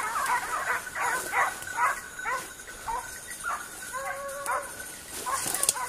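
Basset Griffon Vendéen hounds giving tongue, a quick run of short overlapping yelping bays several times a second, with one longer drawn-out bay about four seconds in. Scent hounds bay like this when they are working the line of game.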